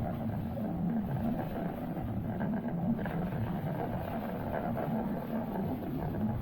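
Suzuki four-stroke 60 hp outboard running steadily on a small boat underway, with a wavering engine drone mixed with water and wind noise.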